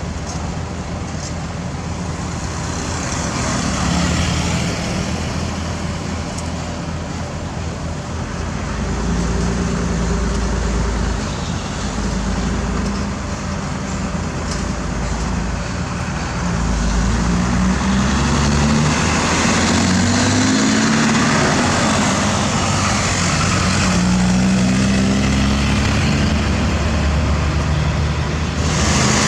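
Heavy diesel engines of road-construction machinery and passing road vehicles running, the engine note rising and falling and growing louder a little past the middle.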